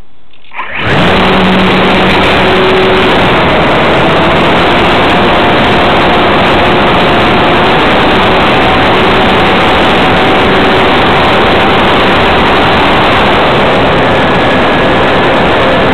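Electric motor and propeller of a Sig Kadet RC model plane, heard from a camera mounted on the plane. The motor comes up to power abruptly under a second in, then runs loud and steady through takeoff and flight as a dense noise with faint whining tones.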